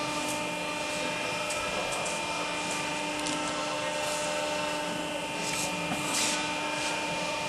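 Barwell ECO Plus rubber preforming machine running, a steady mechanical hum with a few short hisses now and then.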